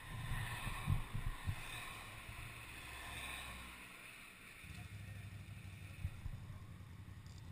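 Quad bike engine idling with a steady low rumble, with a few knocks about a second in. The rumble dips briefly a little past the middle.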